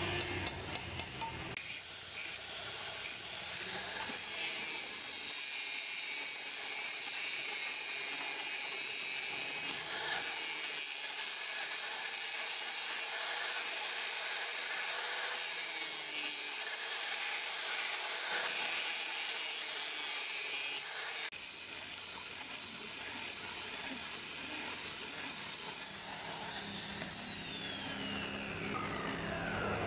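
Angle grinder grinding a steel kickstand part, a steady high whine that dips now and then as the disc is pressed into the metal. Near the end it is switched off and the motor winds down in a falling whine.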